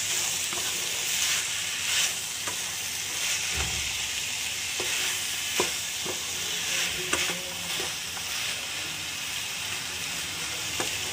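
Mixed vegetables (broccoli, potato, peas, tomato) sizzling gently in oil in a non-stick wok on low flame while a spatula stirs them. A steady frying hiss runs under irregular scrapes and knocks of the spatula against the pan.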